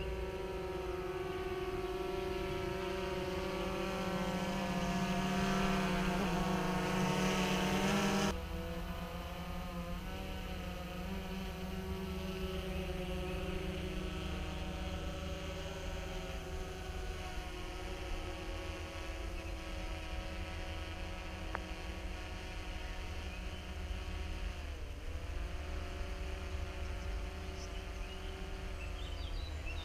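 DJI Phantom 3 quadcopter's four propellers and motors buzzing in flight, a steady many-toned whine. It grows louder over the first eight seconds, then drops abruptly in level. It carries on steadily with short dips in pitch near the end as the drone manoeuvres.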